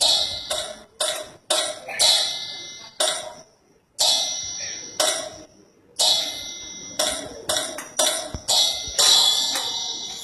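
A metal bell rung in repeated strokes at an uneven pace, at times about two a second, with a gap of about a second near the four-second mark; each stroke rings out and fades before the next.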